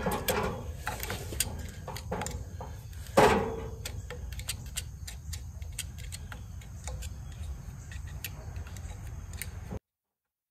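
Light clicks, taps and scraping of a small hand tool picking out an old oil felt that has gone to pieces, with one louder knock about three seconds in. The sound cuts off suddenly near the end.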